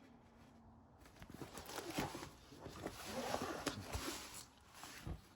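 Rustling, crinkling and light tapping from a diamond painting canvas being handled, a run of quick clicks and crinkles lasting about three seconds, with a single soft knock near the end.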